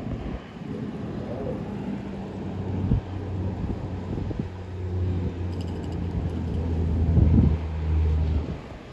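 A motor vehicle's engine running with a low, steady hum that grows louder and then stops near the end. There is a single knock about three seconds in.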